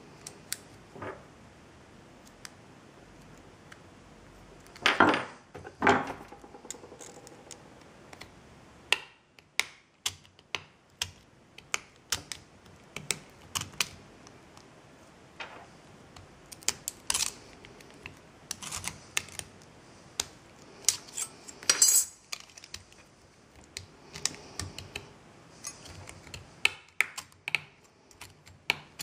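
Thin metal strip being handled, folded and bent around a small hand bending tool on a workbench: irregular metallic clicks and clinks. Two louder scraping rustles come about five seconds in.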